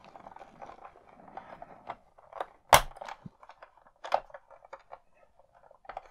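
Hard plastic clicks and knocks of Playmobil toy parts being handled and pressed into place in the toy VW T1 bus, with one sharp snap a little before the middle and a few lighter clicks after it.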